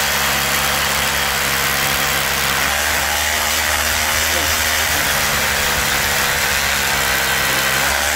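Einhell Herocco 18 V brushless cordless rotary hammer drilling steadily in hammer mode into reinforced concrete, a continuous hammering rattle without a break.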